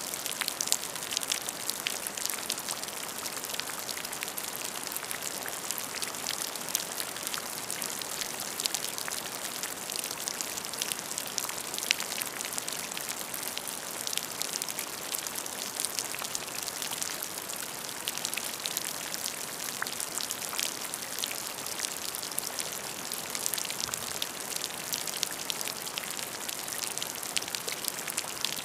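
Steady rain falling, with many separate drops hitting close by.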